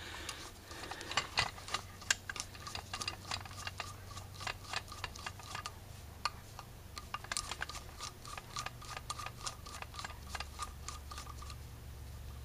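Screwdriver working the screws of an Autolite 4100 carburetor's choke housing: small, irregular metal clicks and ticks of the tool tip and parts, over a faint steady low hum.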